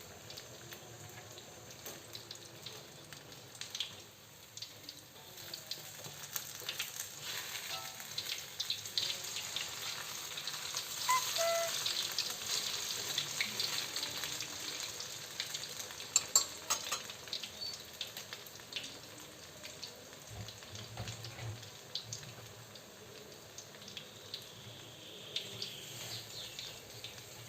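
Flour-battered tempe frying in hot oil: a steady sizzle with small crackles, swelling louder through the middle, with a few sharp pops about two-thirds of the way through.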